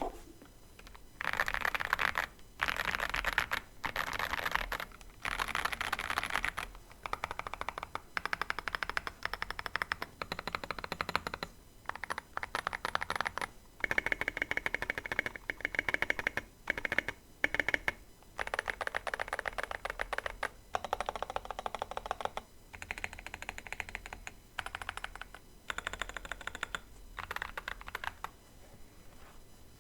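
Fast typing on an Ikki68 Aurora mechanical keyboard with lubed Boba U4T tactile switches, an FR4 plate and SA-profile keycaps. The clicks come in quick runs of a second or two, with short pauses between them.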